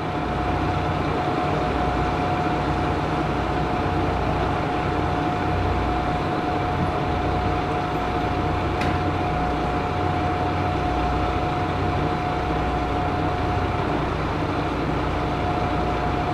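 Kanto Railway KiHa 2300-series diesel railcars standing at idle: a steady low diesel rumble with a constant thin whine over it.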